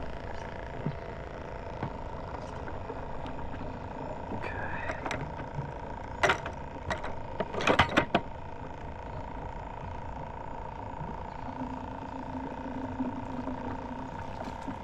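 Small battery bait-bucket aerator pump humming steadily, with a few sharp clicks and knocks of tackle being handled about six to eight seconds in.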